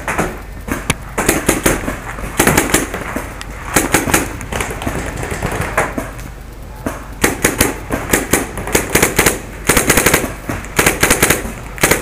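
First Strike T15 paintball marker firing on full auto: a series of bursts of rapid pops, each burst lasting under a second, with short pauses between.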